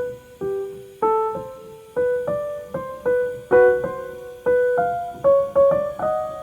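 Background music: a slow piano melody, single notes struck one after another, each ringing out and fading.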